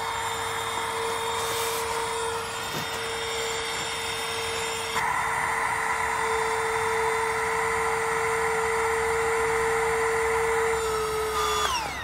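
Small battery-powered electric air pump running steadily as it inflates a sleeping pad. It gets louder about five seconds in, then winds down with a falling pitch just before the end, once the pad is full.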